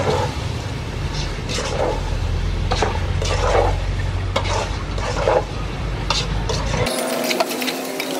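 Metal ladle stirring and scraping against the side of a metal cooking pot of chopped squash, a scrape or clink every half second to a second. Underneath runs a steady low rumble that cuts off abruptly about seven seconds in.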